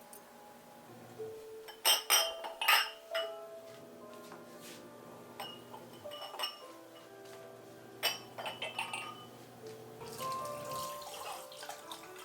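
Soft background music, with two clusters of sharp ringing clinks of tableware, about two and eight seconds in, and water running near the end.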